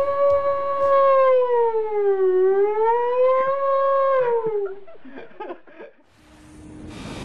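A man's voice imitating a siren into a handheld microphone: one long wavering wail that rises, dips about two seconds in, rises again and falls away at about four and a half seconds. A few faint clicks follow.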